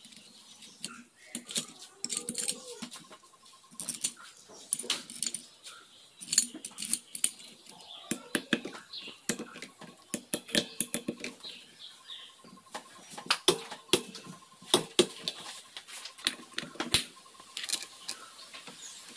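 Sharp, irregular metallic clicks and clinks of a hand tool and steel parts as the clutch pressure plate and its bolts are fitted on a motorcycle engine's clutch, with faint animal calls in the background.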